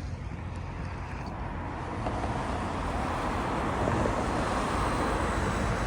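Jet airliner's engines passing overhead: a steady rushing noise that swells gradually from about two seconds in, with a faint high whine above it.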